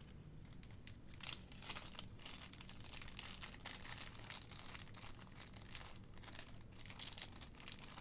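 Small clear plastic parts bags crinkling faintly in the hands as they are turned over and handled, with many short irregular crackles.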